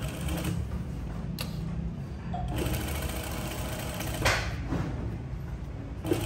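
Zoyer industrial single-needle lockstitch sewing machine running steadily, stitching through denim, with a short sharp click about four seconds in.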